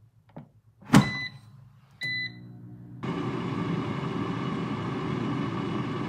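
PowerXL air fryer being shut and started: a loud clunk about a second in as the basket goes home, two short beeps from its control panel, then about three seconds in its fan starts and runs steadily.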